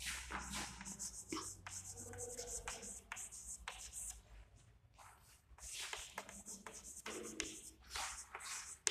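Chalk scratching and tapping on a blackboard as words are written, in many short strokes with a pause about four seconds in.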